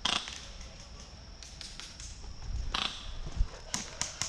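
A few sharp clicks and knocks, with a quicker run of clicks near the end, over a steady high-pitched tone.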